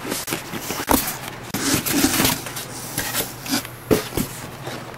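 Cardboard box and foam packing being handled by hand: an irregular run of knocks, scrapes and rustles.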